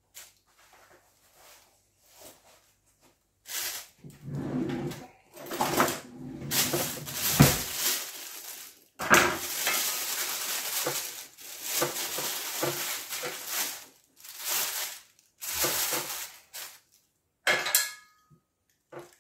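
Plastic oven roasting bag crinkling and rustling in bursts as hands pull and tear it open around a cooked chicken, with some clatter from the wire rack and metal baking tray beneath.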